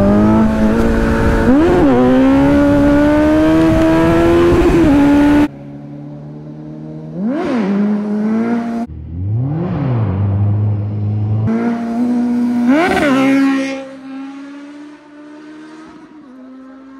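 Kawasaki Z900's inline-four engine blipped hard, then pulling in gear with its pitch climbing steadily as the rider launches for a wheelie; this breaks off suddenly about five seconds in. Further sharp throttle blips follow, then the engine note fades as the bike pulls away.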